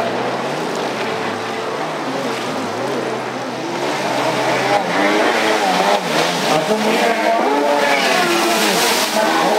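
Jet ski engines revving, their pitches rising and falling and overlapping over a rushing haze. From about four seconds in, more engines join and the sound gets a little louder.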